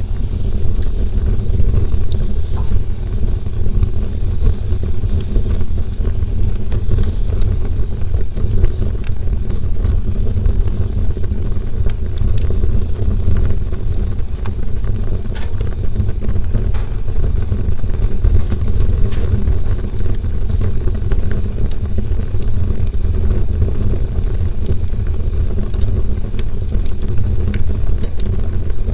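Campfire burning with a steady low roar and scattered small crackles and pops throughout.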